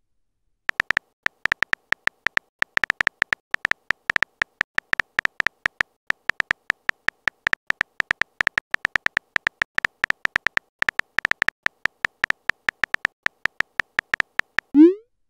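Phone keyboard typing clicks: a quick, irregular run of short ticks, one per letter as a text message is typed. Near the end a short rising swoop marks the message being sent.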